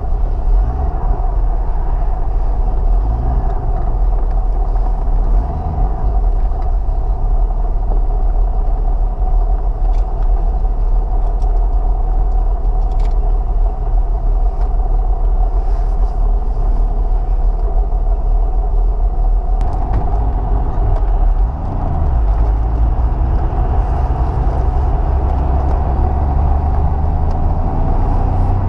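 Triumph TR5's 2.5-litre straight-six engine running as the car pulls out and drives off, a steady engine and road noise with a brief dip in loudness about three-quarters of the way through.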